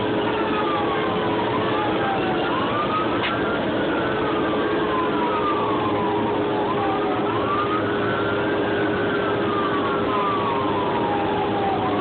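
Fire engine siren on a slow wail, rising and falling in pitch about every four to five seconds, heard from inside the truck's cab over the steady drone of the engine and road noise.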